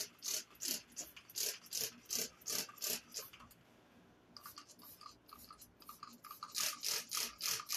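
Quick, even scratchy strokes close to the microphone, about three a second, with a pause of about a second near the middle.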